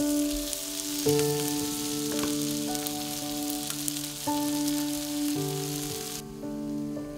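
Potato-and-corn waffle batter sizzling on a hot waffle-iron plate, a dense crackling hiss that cuts off about six seconds in. Under it, background music with slow held chords.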